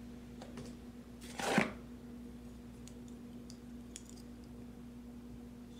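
Handling noise from black plastic GoPro camera mounts and their cardboard packaging: a few small clicks and one brief louder scuff about a second and a half in, over a steady low hum.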